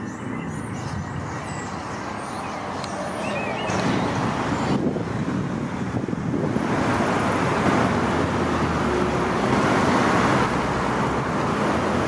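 Steady road traffic noise, growing louder about four seconds in and louder still past the middle, with a few faint bird chirps in the first few seconds.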